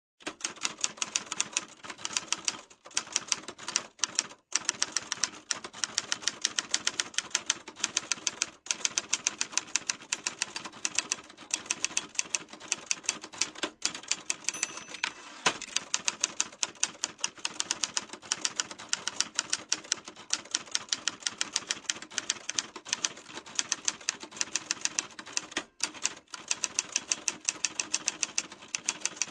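Typewriter keys striking in a quick, steady run of sharp clicks, several a second, with a few brief pauses between bursts of typing.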